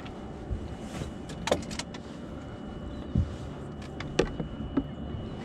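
Scattered knocks and clicks of a landing net and gear being handled on a fishing boat, over a steady low hum.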